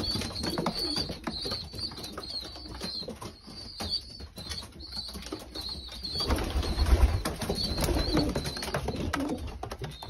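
Young racing pigeons begging to be fed, a run of short, wavering, high-pitched squeaks repeated over and over. A low rumble joins from about six seconds in.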